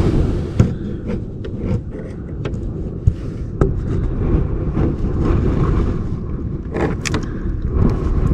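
Low rumbling noise with scattered light clicks and scrapes, as of a handheld camera being moved and brushed against a trailer slide-out's rubber seal and steel cable.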